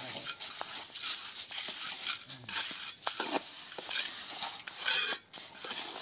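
Mason's trowels scraping and spreading wet cement concrete in a trench form, with gritty scrapes and small knocks of metal on the mix.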